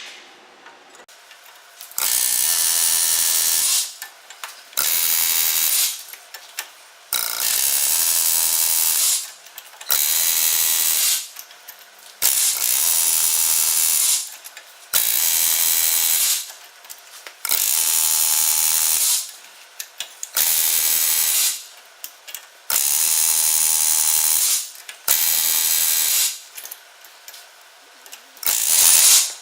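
Pneumatic air hammer with a chisel bit, hammering in repeated bursts of one to two seconds, about ten times, with short pauses between. It is chiseling out a corroded, seized front wheel bearing.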